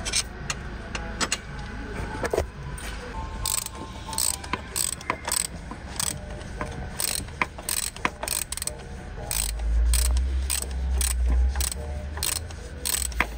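Hand ratchet clicking in repeated short strokes, about two clicks a second, as it turns out the T30 Torx screws behind the high-pressure fuel pump sprocket. A low rumble joins for a couple of seconds past the middle.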